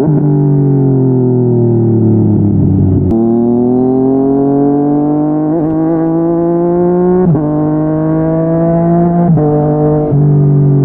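Yamaha MT-09 inline three-cylinder engine through a Yoshimura R55 slip-on exhaust, ridden hard: the note falls for about three seconds, then climbs again and again through the gears, with quick breaks at gear changes about three, seven and nine seconds in.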